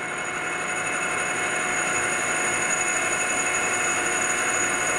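Emco V13 lathe running under power feed while a homemade O1 tool-steel boring bar takes a light 5-thou-per-side boring cut inside an aluminium tube: a steady machine whine over an even hiss.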